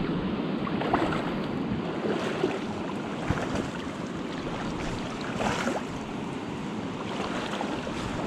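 Steady rush of river current flowing past the bank, with wind buffeting the microphone and a few small scattered ticks.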